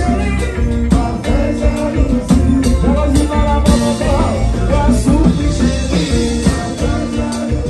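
Live band music: hand-played conga drums and a drum kit over a steady bass line, with singing.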